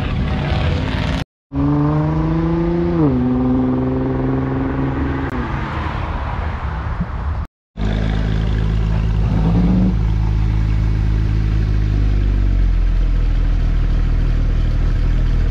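Car engines running, spliced from several clips with two abrupt dropouts. In the middle clip an engine's pitch falls sharply about three seconds in as the revs drop. The last part is a steady low engine note, like an idle.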